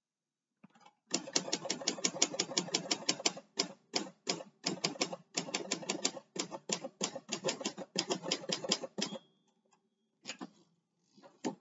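Manual typewriter, which its owner takes for an Olympia SM De Luxe, typed on fast: runs of sharp key strikes at about seven a second with short pauses, stopping about nine seconds in, followed by a few scattered clacks.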